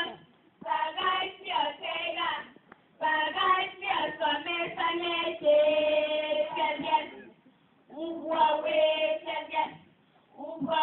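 A group of primary-school girls chanting a Kalenjin poem together in a sing-song voice, in phrases of a few seconds broken by brief pauses, some notes held.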